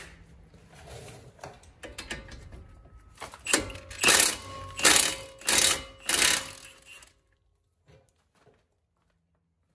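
Cordless impact wrench hammering in five short bursts, a little over half a second apart, a few seconds in; light clatter of tools before them.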